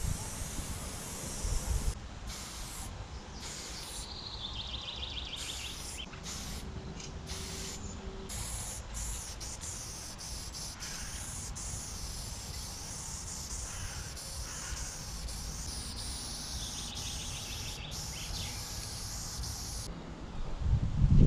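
Aerosol spray-paint can hissing in on-and-off bursts, with a steady low rumble underneath. A short high descending trill is heard twice.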